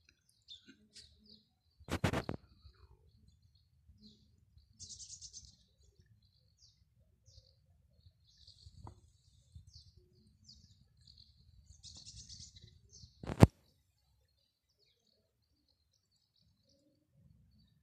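Small birds chirping repeatedly, with two denser bursts of chatter about five and twelve seconds in. Two loud thumps, about two seconds in and at about thirteen seconds, are the loudest sounds.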